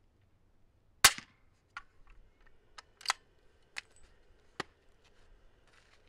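A single suppressed subsonic rifle shot about a second in: a 200-grain 300 Blackout round from an 8-inch bolt-action rifle through a Thunder Beast 338SR suppressor, measured at about 115 dB at the shooter's ear. Several sharp clicks and knocks follow over the next few seconds as the rifle is handled.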